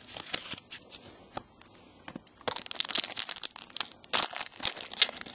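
Trading-card pack wrapper being torn open and crinkled by hand, with the clicks and slides of cards being handled. A dense run of crinkling starts about halfway through.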